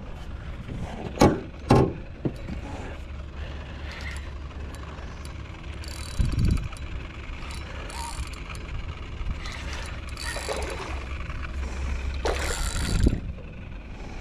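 Spinning reel being wound on a fishing rod in an aluminium dinghy, with two knocks on the boat about a second in and a few short rushes of water or handling noise over a steady low rumble.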